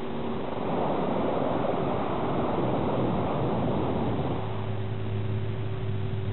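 Propeller-driven warplanes flying past in formation: a rushing engine noise that swells and then drops away after about four seconds, leaving a steady low drone.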